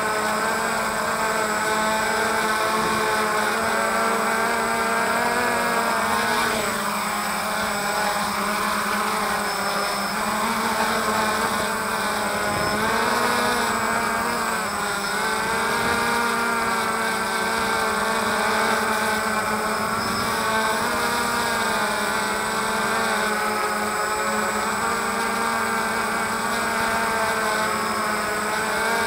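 DJI Phantom quadcopter's motors and propellers whining steadily, heard from the camera it carries. Several pitches waver together and dip and recover a few times as the drone manoeuvres.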